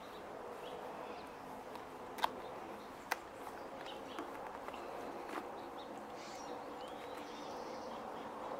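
Quiet outdoor background: a steady low hum with faint, scattered bird chirps, and two sharp clicks about two and three seconds in.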